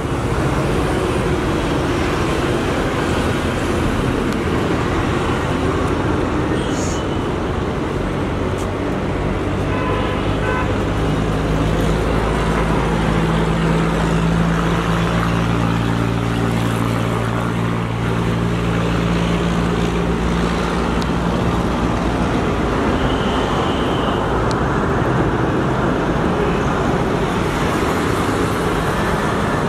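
Steady road traffic noise, with a vehicle engine humming close by for several seconds in the middle.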